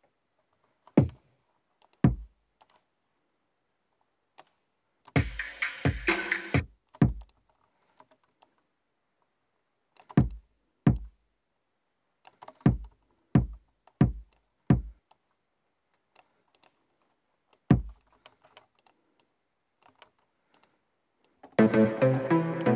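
Short percussive sounds from a software instrument, auditioned one at a time with silence between: about a dozen single hits and one longer noisy one. Near the end, sustained synthesizer notes are played on a MIDI keyboard.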